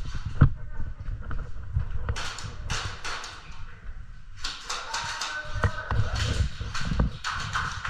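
Footsteps and gear rustle of an airsoft player moving through an indoor arena: irregular dull thumps with scuffing and clothing noise, and faint voices in the background.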